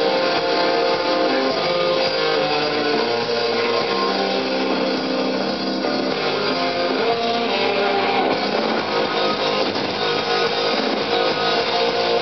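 Punk rock band playing live, with electric guitars strumming steadily.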